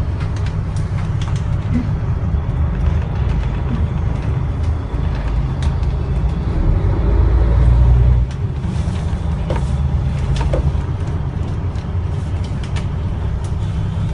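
Pilot boat under way with its engines running: a deep, steady rumble that swells for a second or so past the middle and then drops off suddenly, with a few light knocks over it.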